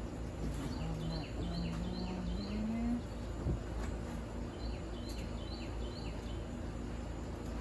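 A bird outside calls in two runs of four short, evenly spaced chirps. A single sharp tap comes about three and a half seconds in, over a steady low background rumble.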